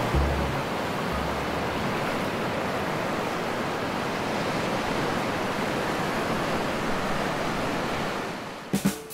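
Steady rushing of ocean surf. Low notes of background music die away in the first second or so, and the surf fades down near the end.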